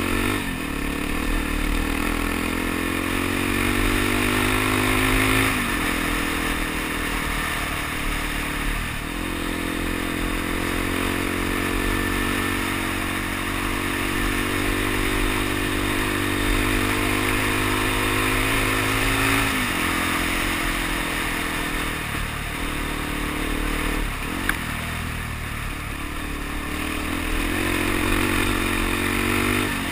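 Suzuki DR-Z dual-sport motorcycle's single-cylinder engine running under way, its pitch climbing and then dropping sharply several times as it is shifted through the gears, with tyre noise on the gravel road and wind on the microphone throughout.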